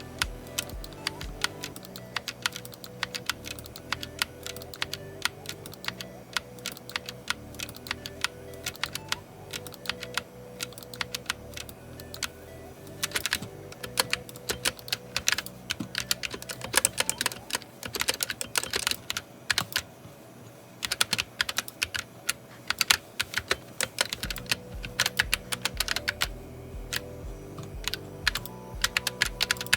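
Typing on a GK61 60% mechanical keyboard with optical switches: a steady run of clacking keystrokes that come in thicker flurries after the middle.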